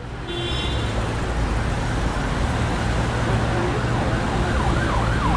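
Steady road-traffic rumble. About four and a half seconds in, an emergency-vehicle siren joins it in fast yelp mode, its pitch swooping down and back up about three times a second.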